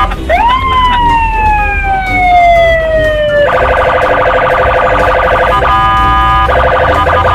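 Electronic police siren: one long wail that rises quickly and then falls slowly over about three seconds, then switches to a fast warbling yelp. About two-thirds of the way through the yelp breaks briefly into a steady tone, then resumes.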